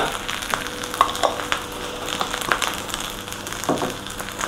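Fried rice sizzling in a metal wok over a gas flame: a steady hiss with many small crackles and a few light knocks.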